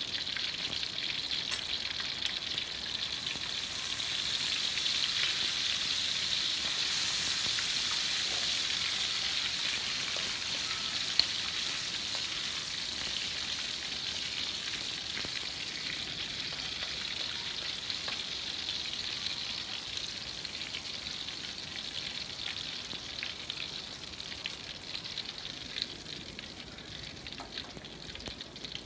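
Chopped red chillies deep-frying in hot oil in a wok: a steady sizzle that grows louder a few seconds in, then slowly dies down. One sharp tick sounds about eleven seconds in.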